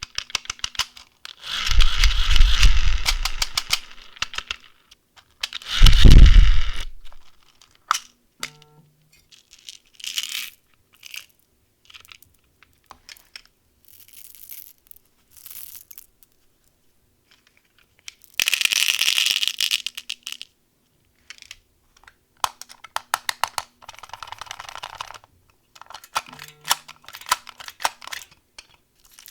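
Candy packaging handled and opened close to the microphone: plastic wrappers and boxes crinkling and tearing, with scattered sharp clicks and taps. Two loud rustling bursts with heavy thumps come in the first seven seconds, and a long crackling tear about two-thirds of the way through.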